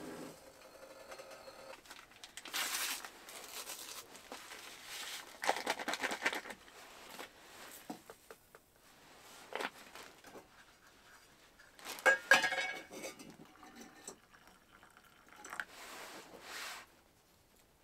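Camp cookware being handled in short bursts with pauses between: clinks and scrapes of a metal pot and cup, with rustling and pouring as food is dished out.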